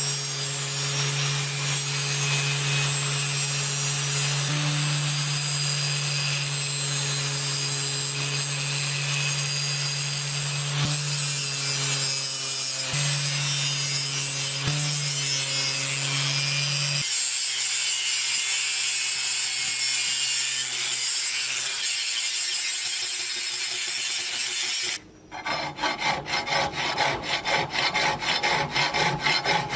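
A power tool runs with a steady motor hum while abrading the steel of an old rusty knife during its restoration. It changes to a quieter texture partway through, then stops. It is followed by rapid rhythmic rubbing strokes of about four a second, like hand sanding or filing.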